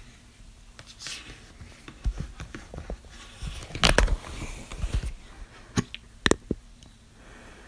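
A person hiccuping: a few short, sharp hiccups a second or two apart, the loudest about four seconds in.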